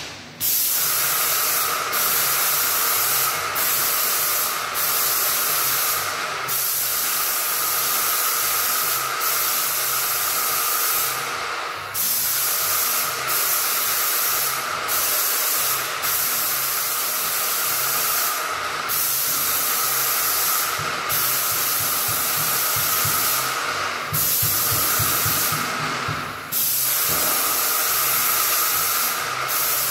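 Paint spray gun spraying primer: a steady hiss with a brighter whistling band in it, broken every second to few seconds by brief gaps where the spray stops and starts again. A low, regular pulsing runs underneath.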